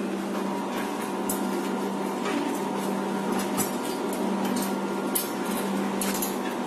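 Scattered light metallic clinks and taps as bolts, fittings and hands work against the steel frame of a printer stand being assembled, over a steady hum.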